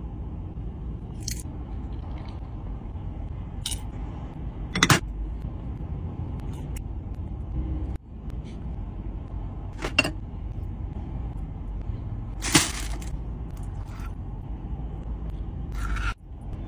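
Steady low rumble of a car cabin, with a few short sharp clicks and clinks as plates and food are handled, the loudest about five and twelve seconds in.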